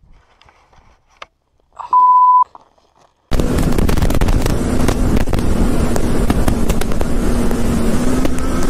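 A single high-pitched electronic beep lasting about half a second, then, from about three seconds in, loud wind rush and buffeting on the camera of a Yamaha sport motorcycle at road speed, with the engine's steady drone underneath.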